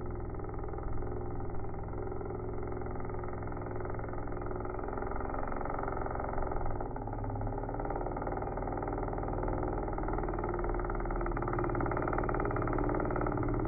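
Two-stroke gasoline engine of a large RC speedboat running at speed on the water, a steady drone that holds its pitch and grows slightly louder near the end.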